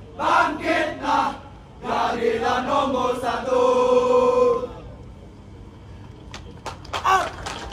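A large squad of uniformed firefighters chanting their fire cry in unison: three short shouts in the first second or so, then a longer chanted phrase ending on a held note that cuts off sharply about five seconds in. A few sharp knocks follow near the end.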